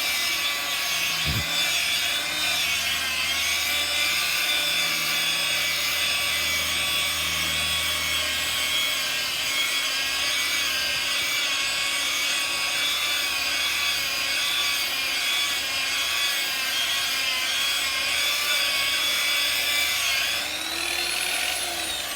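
Power sander grinding on concrete: a steady motor whine over a rasping scrape. Near the end the pitch swoops and the sound starts to die away.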